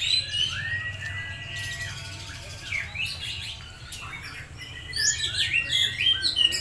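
Oriental magpie-robin (kacer) singing a fast, varied stream of whistles, glides and chirps, busiest at the start and again in the last second and a half. A steady low hum lies beneath.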